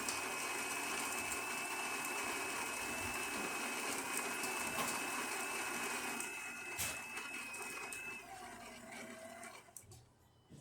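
Gaggia Babila super-automatic espresso machine running a coffee cycle: a steady mechanical whir with a thin high whine that stops about eight seconds in, then a short lower tone as it winds down.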